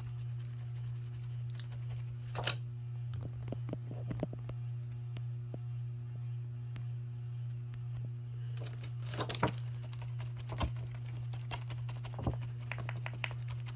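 Light handling clicks and taps from mascara being applied, scattered and irregular, with a small cluster in the first few seconds and several more near the end, over a steady low hum.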